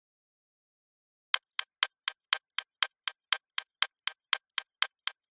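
Rapid, even ticking, about four ticks a second, starting a little over a second in, in the manner of a clock or timer tick.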